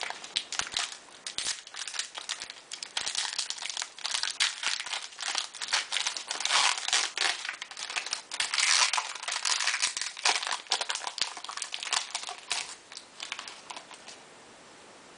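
Crinkling of a trading-card pack's wrapper being handled and torn open by hand, a dense run of irregular crackles that stops about a second before the end.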